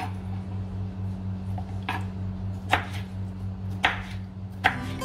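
Kitchen knife chopping cucumber into chunks on a wooden cutting board: the blade knocks on the board four times, roughly a second apart, over a low steady hum.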